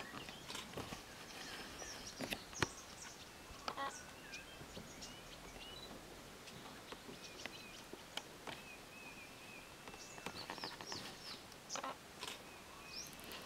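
Wild birds calling over a faint steady hiss: scattered short chirps, a run of repeated chirps in the middle and a busier flurry near the end, with occasional sharp clicks.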